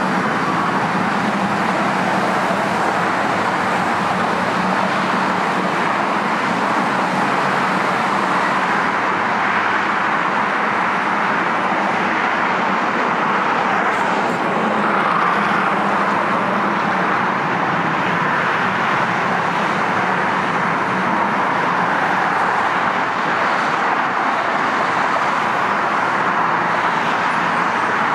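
Steady freeway traffic noise: an even wash of tyre and engine sound with no single vehicle or event standing out.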